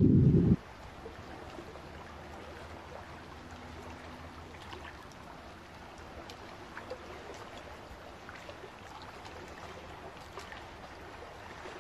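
A loud low drone cuts off suddenly about half a second in, leaving faint, calm water: a soft steady wash with small trickling drips and ticks.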